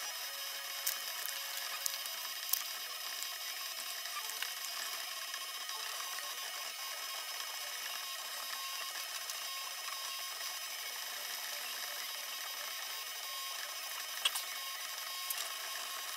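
Laser engraver at work: a steady mechanical whine in several pitches from its stepper-driven head over an even hiss, with a few sharp ticks, two or three about one to two and a half seconds in and a couple near the end.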